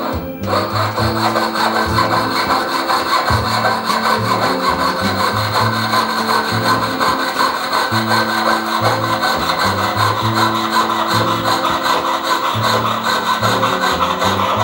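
Jeweller's piercing saw cutting through a gold bar, sawing off a length for a ring, in quick, even back-and-forth strokes that start about half a second in.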